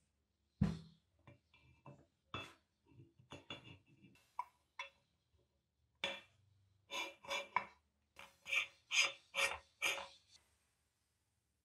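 Parts of an antique Husqvarna cast-iron meat grinder being handled and fitted together. A knock comes about half a second in, followed by scattered metallic clinks with short ringing and a quicker run of clinks near the end.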